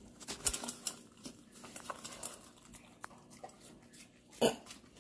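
American Bully puppy eating scrambled egg from a stainless steel bowl: quick, scattered licking and chewing clicks, with one louder knock about four and a half seconds in.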